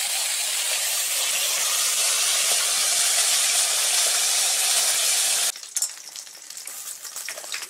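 Fish heads frying in hot oil in a pan, a steady loud sizzle. It stops abruptly about five and a half seconds in, leaving only faint small clicks and taps.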